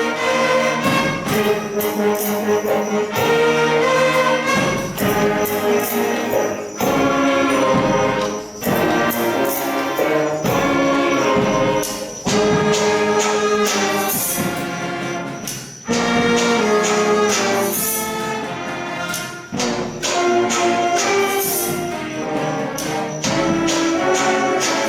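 Wind band (banda típica) playing a composed piece, with brass melody over a steady beat of sharp percussion hits.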